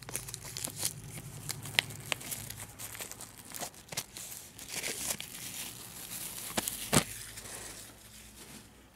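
Plastic shrink wrap being torn and peeled off a Blu-ray case, crinkling throughout, with sharp clicks and taps from the plastic case; the loudest click comes about seven seconds in.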